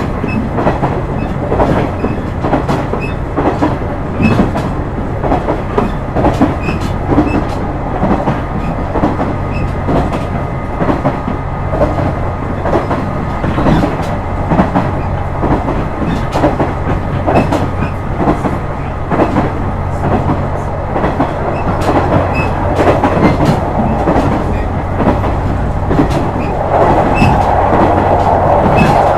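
KiHa 126 diesel railcar running: a steady engine drone with a rhythmic clickety-clack of the wheels over rail joints. A louder rushing noise comes in near the end.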